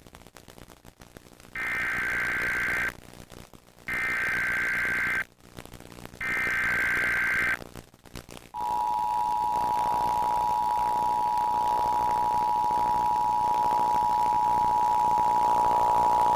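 Emergency Alert System test signal. It starts with three short screeching bursts of digital data, the SAME header, each a little over a second long with short gaps between them. Then comes the two-tone attention signal, a steady harsh dual tone held for about eight seconds.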